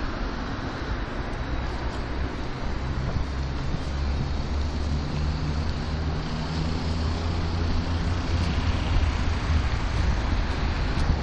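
Road traffic noise from cars on a city street, with a low engine rumble that swells through the middle.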